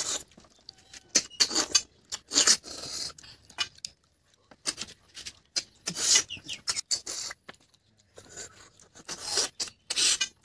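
Loud sucking and slurping as cooked river snails are sucked out of their shells, in short hissy pulls of up to about a second with pauses between.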